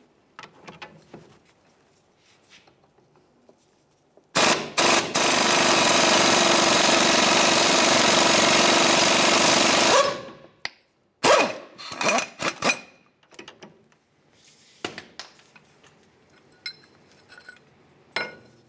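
Impact wrench hammering on a ball joint press screw, forcing the old lower ball joint out of the lower control arm: one long run of about six seconds starting about four seconds in, then a few short bursts. Light metal clinks follow as the press is handled.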